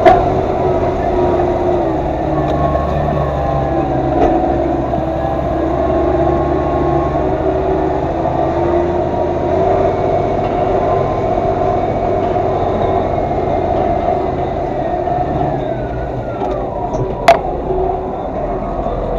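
Massey Ferguson 3115 tractor engine running steadily under load, with a sharp click at the start and another near the end.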